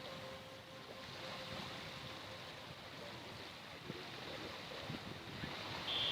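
Bay of Bengal surf washing onto a sandy beach, a steady rush of breaking waves. A faint steady hum sits under it at first, and a brief high beep sounds just before the end.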